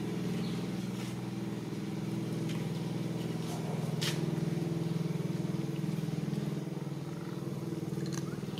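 A steady low engine hum, with one sharp click about four seconds in.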